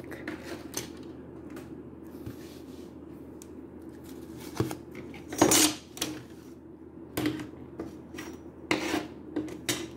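Handling noise from a plastic action figure and its cape: scattered clicks, taps and rubbing as the parts are fitted and the figure is set on a wooden shelf, the loudest knock a little past halfway.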